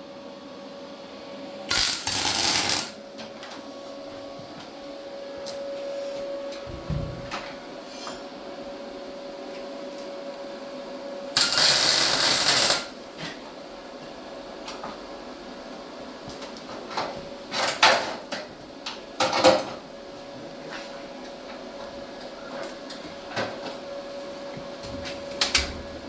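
Welder laying tack welds on old steel frame metal: a sizzling arc burst of about a second near two seconds in, a longer one near twelve seconds, then several short crackling bursts later on, as a burned-through spot is filled in. A steady hum runs underneath.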